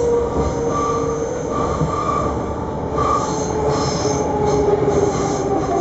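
Passenger train running along the track, heard from inside the carriage: a steady rolling rumble of the wheels with thin high whines from the wheels on the rails that come and go.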